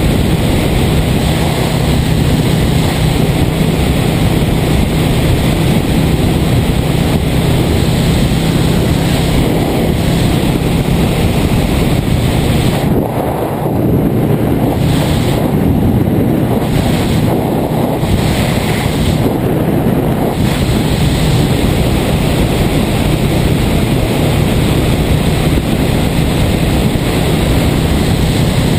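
Wind rushing over the microphone above the steady drone of a 1978 Yamaha XS400's air-cooled parallel-twin engine at cruising speed. The wind hiss eases in a few short gaps midway.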